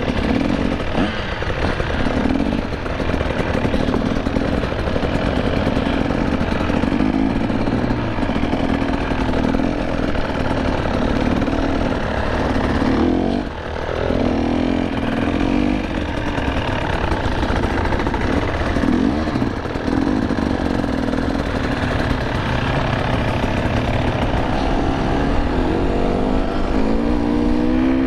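GasGas two-stroke enduro motorcycle engine running under the rider, its pitch rising and falling with the throttle. The engine drops briefly off throttle about halfway through, then revs up rising near the end.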